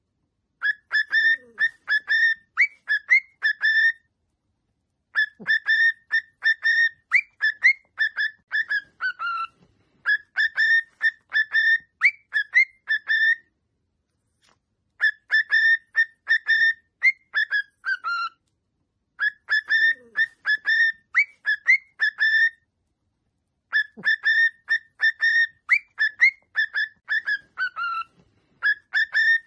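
Male cockatiel whistling its song: phrases of quick, clear whistled notes a few seconds long, several ending on a falling note, with short silent pauses between them.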